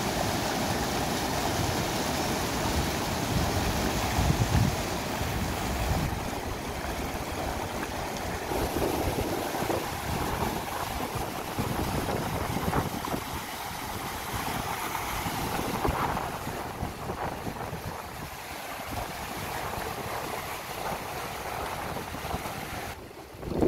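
Rushing water of a rocky mountain stream, a steady whitewater rush as it tumbles over boulders.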